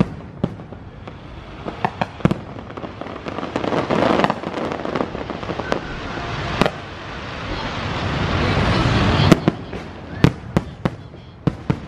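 Fireworks display: aerial shells bursting overhead with sharp bangs at irregular intervals, about a dozen, several in quick succession near the end. Between the bangs there are swells of rushing, crackling noise.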